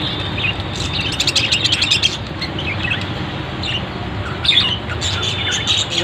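Caged budgerigars chirping and chattering: many quick high chirps in clusters, with a few held whistling notes, over a steady low hum.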